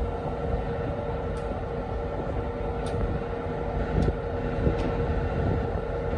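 Machinery aboard a ship running with a steady low drone and a constant hum, with a few faint clicks.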